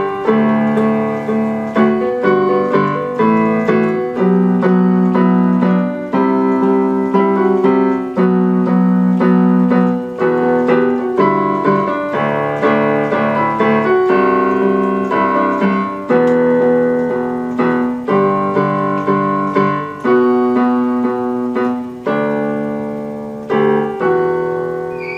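Electronic keyboard played in a piano voice: a steady run of chords with a melody on top, the last chord left to ring and fade near the end.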